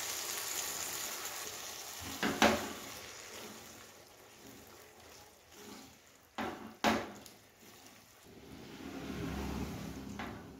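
Boiled chana dal tipped into a pan of frying vegetables, the sizzle dying away over the first few seconds as the cooler dal goes in; a wooden spatula then stirs it, with a few sharp knocks on the pan about two, six and seven seconds in.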